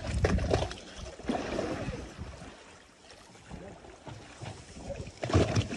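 Sea water sloshing against a wooden fishing boat's hull, with wind on the microphone, coming in uneven surges that are loudest just after the start and again near the end.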